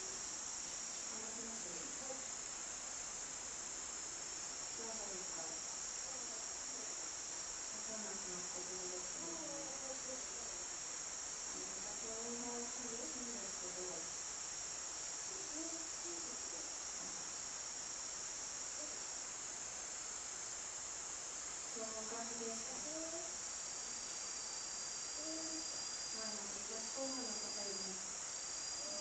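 Insects singing outdoors in a steady, high-pitched drone. From about 23 seconds in, a second broken, pulsing tone joins. Faint irregular low sounds come and go underneath.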